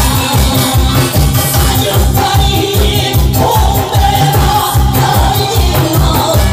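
Loud live Korean pumba music: a fast, steady drum beat with a held sung or played melody about halfway in, and a small brass hand gong (kkwaenggwari) struck along with the beat.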